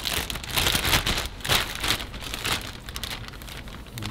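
Plastic zip-top bag crinkling and rustling as it is pulled open and a fish fillet is handled inside it, busiest in the first two and a half seconds and then quieter.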